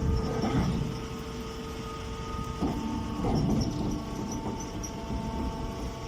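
Straw baling machine running: a steady motor hum over low mechanical noise, swelling in the first second and again around three seconds in.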